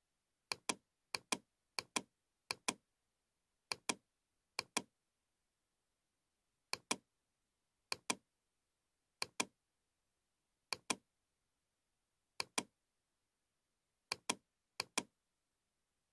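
Computer mouse button clicked about thirteen times at uneven intervals, each click a quick double tick of press and release.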